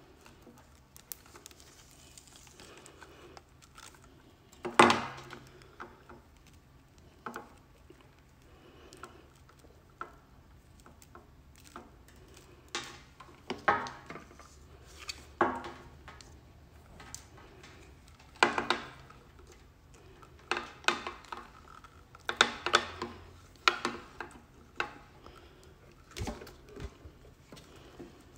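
Irregular clicks, knocks and rustles of a power adapter and its cable being handled and a Shure wireless receiver being moved about on a hard countertop. There is one sharp knock about five seconds in, and a busier run of clicks and knocks in the second half.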